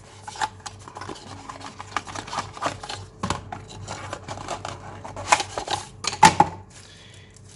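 Paperboard product box being opened by hand: the inner box sliding in its sleeve and the flaps scraping, rustling and clicking in quick, irregular handling noises, with the loudest knocks about five and six seconds in.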